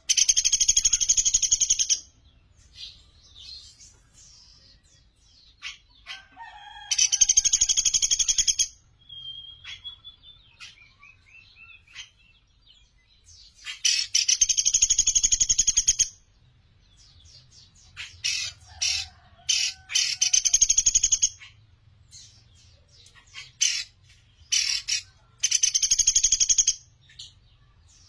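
Caged pelatuk beras singing: loud, fast, high rattling trills about two seconds long, given five times, with short sharp chips in between.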